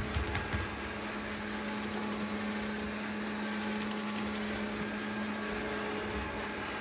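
Robot vacuum cleaner running with a steady motor hum and fan noise, with a few light knocks in the first half second.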